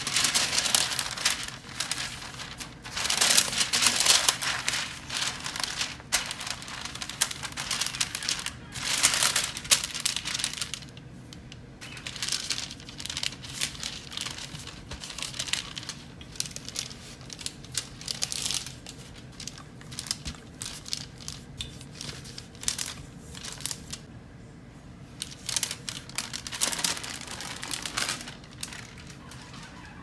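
Wax paper crinkling as a sheet is laid over a ball of pie dough, then rustling and crackling under a wooden rolling pin as the dough is rolled out between the sheets, in repeated bursts of a few seconds each.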